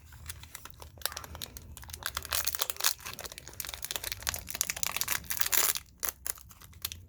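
Ink cartridge packaging crinkling and crackling as it is handled and unwrapped. A dense run of crackles starts about a second in and dies down near the end.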